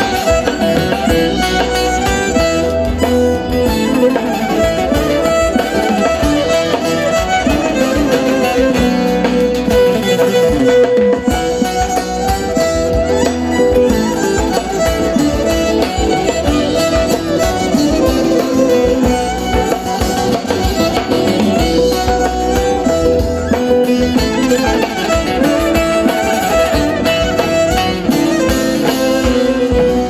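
Live instrumental Turkish folk dance music: a bağlama (long-necked saz) and a small bowed fiddle, the kemençe, playing the melody over drums.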